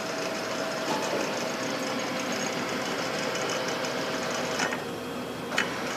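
Poreba heavy-duty lathe running with its carriage driven under power, pushing the tailstock along the bed; a steady mechanical whine drops out about four and a half seconds in, followed by two sharp clicks.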